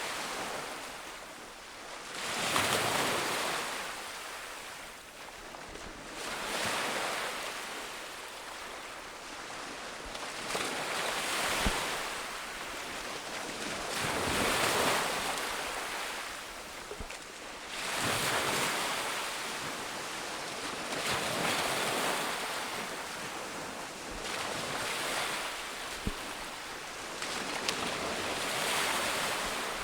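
Ocean surf on a beach: waves break and wash in as a rushing sound that swells and fades about every three to four seconds.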